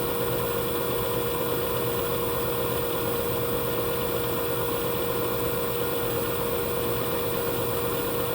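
Panasonic drum-type washing machine running: a steady mechanical hum with a constant whine held at one pitch.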